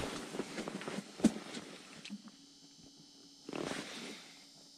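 Clothing rustle and handling noise from an angler moving in his winter suit and picking up an ice-fishing rod, with one sharp knock about a second in and a short rustle past the middle.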